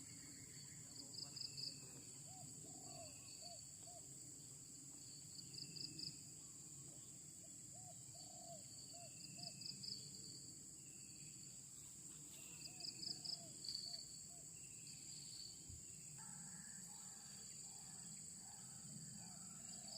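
Faint insect chorus: a steady high-pitched drone, with short trilled chirps every few seconds. A low animal call repeats in runs of three or four.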